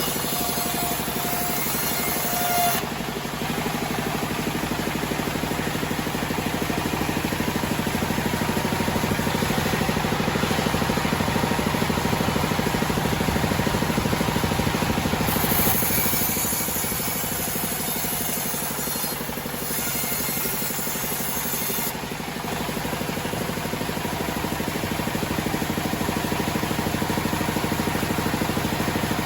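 Homemade band sawmill running steadily while sawing a teak log: a continuous mechanical drone, with a brighter hiss from the blade's cut that swells and fades a few times.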